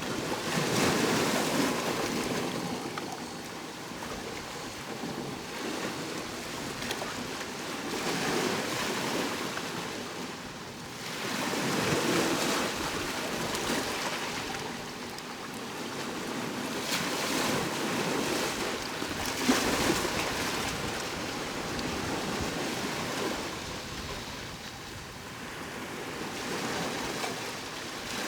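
Sea waves washing onto the shore, each surge rising and falling away over a few seconds, about half a dozen times.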